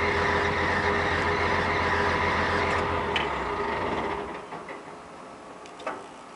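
Excavator's diesel engine running steadily with a low rumble, then dying away about four seconds in, leaving a quieter background broken by a click and a sharp metallic knock near the end.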